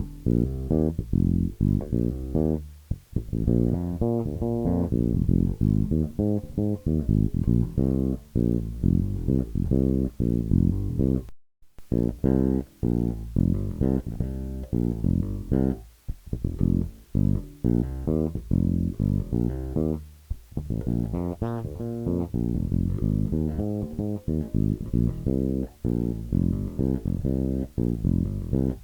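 Modified Squier Precision electric bass, fitted with DiMarzio pickups and an active preamp, played solo in quick runs of plucked notes. The sound cuts out abruptly for about half a second around eleven seconds in, then the playing resumes.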